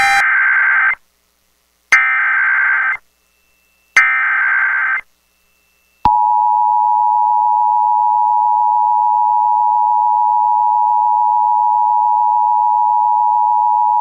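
NOAA Weather Radio Emergency Alert System activation. Three one-second bursts of SAME header data tones, about a second apart, are followed after a short gap by the single steady warning alarm tone, which holds for about eight seconds. The sequence announces a tornado warning.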